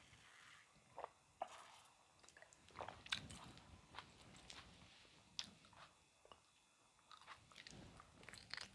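Soft, close-miked chewing and wet mouth sounds of a person eating, with scattered lip smacks and small clicks.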